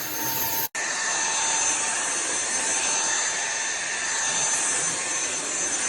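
TVTAU T10 Pro cordless stick vacuum's motor running steadily, a rushing air noise with a thin high whine. It cuts out for an instant under a second in, then carries on.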